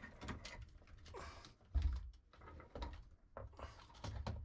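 Handling noises as a washdown pump on its sealant-coated PVC mounting board is set in place against a boat's bulkhead: short scrapes and knocks, with one low thump about two seconds in.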